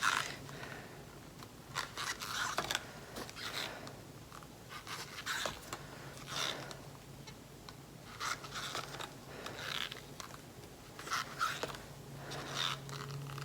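About ten brief, irregular scrapes and rustles of paint cups and bottles being handled on a work table, over a faint steady low hum.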